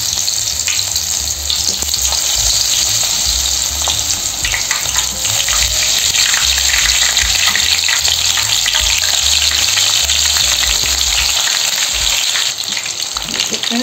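August flower (agathi, Sesbania grandiflora) pakoras in a gram-flour and rice-flour batter deep-frying in hot oil: a steady loud sizzle full of fine crackles and pops, swelling as more batter-dipped pieces go into the oil and easing a little near the end.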